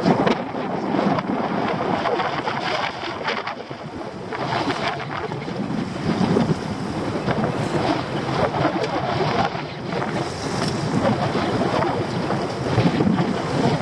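Wind buffeting the microphone and choppy sea splashing against a small open boat's hull, with a few scattered knocks as crab pots are shifted on deck.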